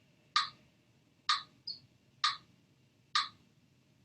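Steady ticking, about one tick a second, four ticks in all, over faint room hiss.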